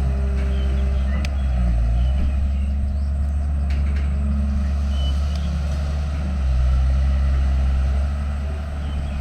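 Heavy construction machinery's diesel engine running under load, its pitch shifting slightly as it works, with a couple of sharp metallic clanks. It gets louder about two-thirds of the way through, then eases briefly near the end.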